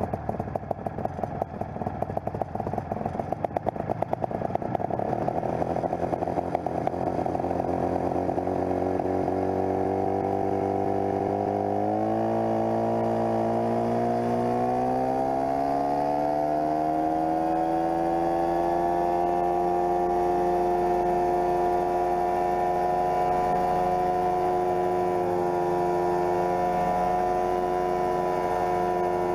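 Homemade coaxial helicopter's engine running unevenly just after starting, then rising steadily in pitch over several seconds as it is throttled up and the rotors spin up, and settling into a steady high-speed run.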